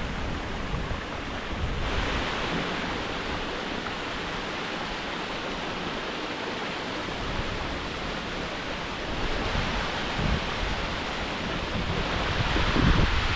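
Waterfall's rushing water, a steady even roar, with brief gusts of wind buffeting the microphone about ten seconds in and near the end.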